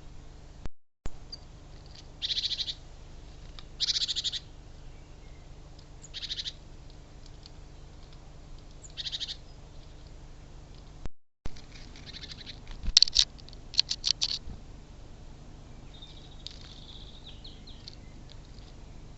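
Birds at a feeder: a few short, harsh, buzzy calls spaced a couple of seconds apart, then a quick run of sharp taps and clicks in the middle, and a short chirp near the end.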